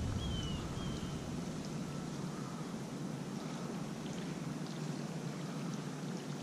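Steady, faint outdoor hiss of creekside air and water, with a bird giving a few short, high, falling chirps near the start.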